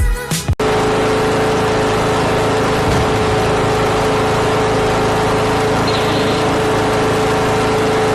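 Small gasoline engine running steadily at a constant speed, loud and unchanging, with a strong steady hum in it. It cuts in abruptly after a brief bit of music.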